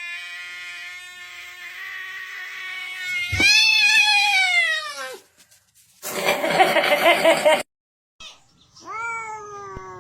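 Cats meowing: a long, drawn-out meow, then a loud meow that falls in pitch, a harsh noisy burst, and after a brief gap another meow falling in pitch.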